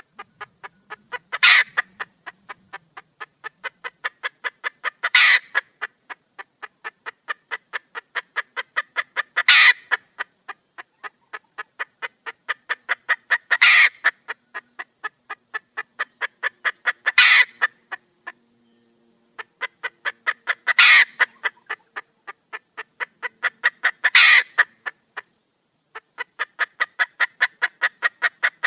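Wild hen (female red junglefowl) calling: a fast series of short clucks, about four a second, building in loudness to a louder call roughly every four seconds, with one short break about two-thirds of the way through.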